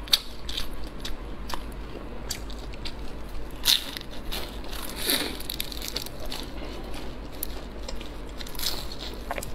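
A person biting into and chewing a crisp, deep-fried pastry close to a clip-on microphone: several sharp crunches between quieter chewing, the loudest a little under four seconds in.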